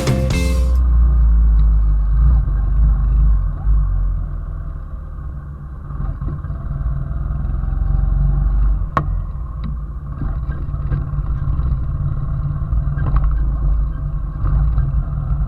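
Steady low rumble of a running vehicle with wind noise on the microphone, and one sharp click about nine seconds in.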